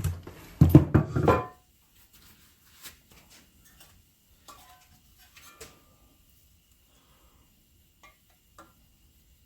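Small metal tools being handled on a workbench: a short rattling clatter about a second in, then a few scattered light metallic clinks.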